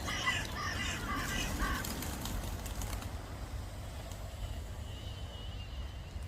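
Harsh, repeated bird calls over the first two seconds, then a flurry of quick wing claps from a pigeon flock taking off about two to three seconds in, over a steady low rumble.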